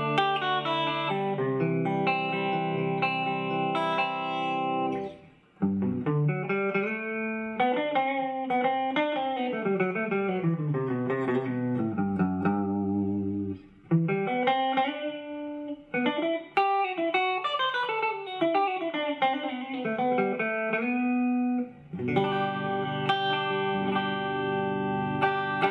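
Shelter SG-style electric guitar with twin humbuckers, played on its bridge pickup with a clean tone through a small combo amp. Held ringing chords give way about five seconds in to single-note runs that fall and rise, with short breaks between phrases, and chords return near the end.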